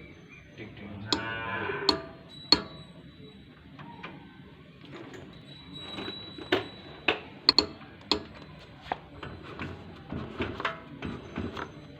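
BLDC electric-scooter hub motor ticking several times under throttle without turning, with a brief low hum about a second in. It is a sign that the motor is not getting proper drive; the fault was later traced to a failed controller that was not supplying one phase.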